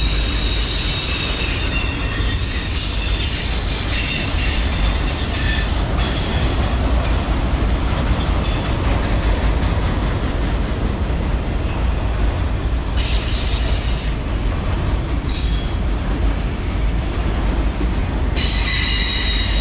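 Loaded autorack freight cars rolling slowly past with a steady low rumble of wheels on rail. High-pitched steel wheel squeal comes and goes, strongest over the first few seconds and again near the end.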